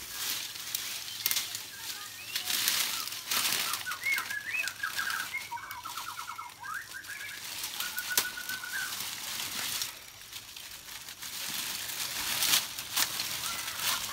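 Rustling of leafy bushes, dry leaves and a plastic bag as a person pushes through undergrowth and lifts a bagged jackfruit. A bird calls in the background with quick runs of repeated notes from about four to nine seconds in.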